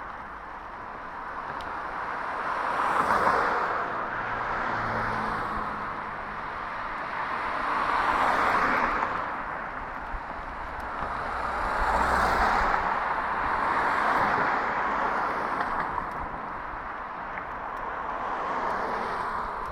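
Street traffic passing a cyclist: about five cars go by in turn, their tyre and engine noise swelling and fading each time.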